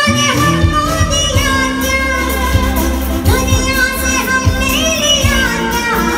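A woman singing a melody with vibrato, accompanied by a live band with a steady beat.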